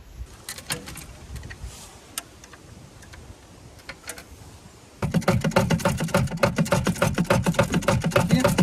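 A few faint clicks and clinks of coins and the coin-pusher mechanism being handled. About five seconds in, loud background music with a fast, busy beat starts abruptly.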